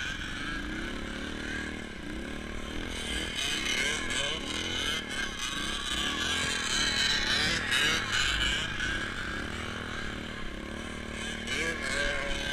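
Small off-road vehicle engine revving up and down over and over, about once a second, as if working through snow.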